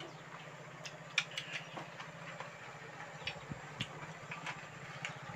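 People eating rice by hand: scattered short mouth clicks and lip smacks of chewing, the sharpest about a second in, over a steady low hum like a small engine running.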